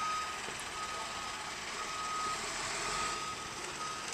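Snowplow truck's reversing alarm beeping, about one half-second beep a second, over steady background noise.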